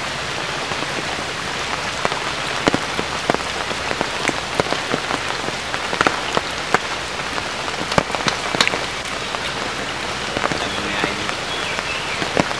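Steady rain falling on shallow water, a constant hiss dotted with many sharp, irregular drop hits.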